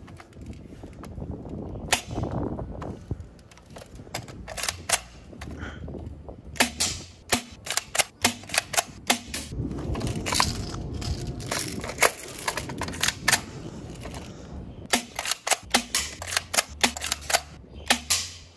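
Airsoft M4 carbine replica firing single shots as sharp cracks, in several clusters of quick shots a few per second, with rattling handling noise of the gun between the groups.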